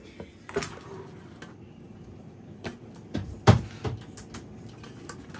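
Clicks and knocks of an air fryer being loaded and shut, the loudest a low thump about three and a half seconds in.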